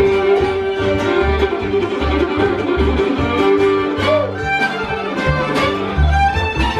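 Live bluegrass band playing: a fiddle carrying the melody over mandolin and acoustic guitar, with an upright bass plucking a steady beat underneath.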